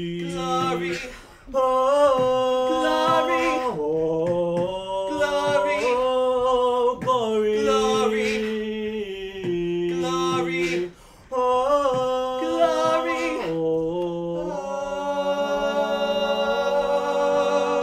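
Small group of young male voices singing a cappella in close harmony, backed by beatboxed percussion. They finish on a long held chord near the end.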